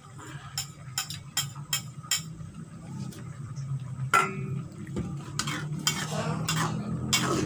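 Stainless-steel spatula stirring cassava leaves in coconut milk in a frying pan, clicking and scraping against the pan: a run of quick taps in the first two seconds, a ringing clink about four seconds in, then longer scrapes near the end, over a low steady hum.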